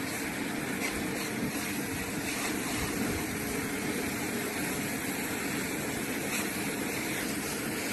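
Steady mechanical running noise, even and unchanging.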